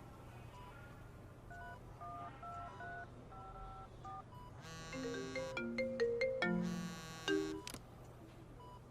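Quiet electronic melody of short held notes, growing louder with a quicker run of notes for about three seconds past the middle, then fading back.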